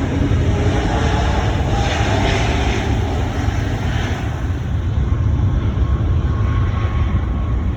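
Jet airliner passing close by, its engines a loud, steady rumble. The higher whine and hiss die away a little past halfway, while the low rumble carries on.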